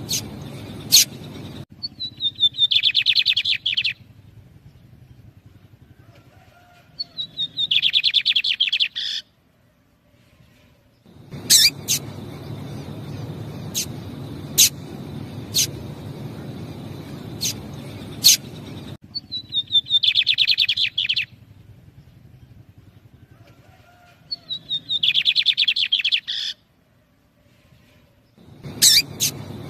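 A pair of lined seedeaters (bigodinhos): single sharp high call notes alternate with four fast trilled song phrases of about two seconds each, each opening with a falling note. The female calling and the male answering in song.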